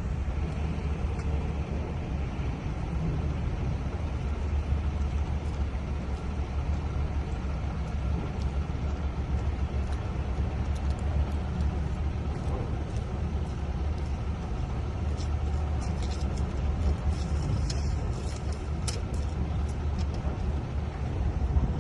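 Car driving: a steady low rumble of engine and road noise, with a few faint clicks near the end.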